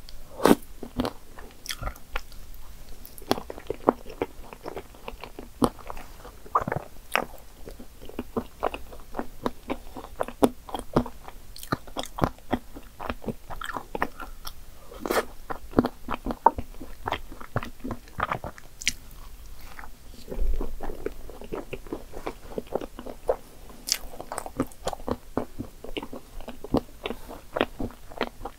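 Chewing and biting into soft baby cream puffs topped with whipped cream, chocolate syrup and chocolate chips: many short mouth clicks and smacks at an irregular pace.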